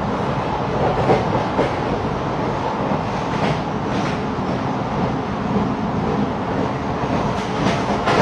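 Interior of a moving passenger train carriage: a steady rumble of wheels and coach body, with short clacks of the wheels over rail joints, some in pairs about half a second apart, coming more often near the end.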